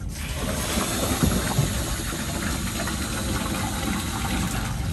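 Water gushing steadily into an RV dump point as a caravan's cassette toilet is emptied and rinsed, the rush starting suddenly and holding even throughout.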